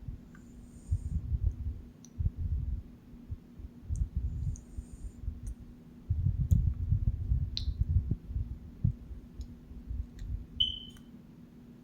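A woman snoring: uneven low rumbling snores, with two short high squeaks, one about two-thirds of the way through and one near the end.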